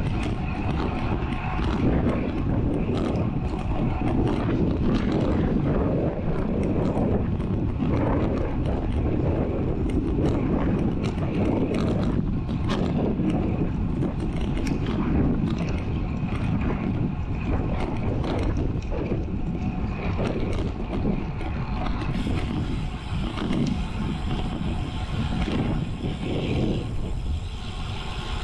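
Wind buffeting an action camera's microphone on a moving road bike, a heavy, fluctuating rush mixed with tyre rumble on the asphalt runway.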